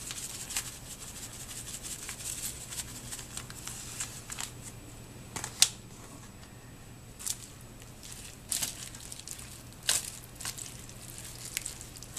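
Thin plastic crinkling: the seasoning packet and the slow cooker's plastic liner bag being handled, in scattered sharp crackles every second or two over a faint steady low hum.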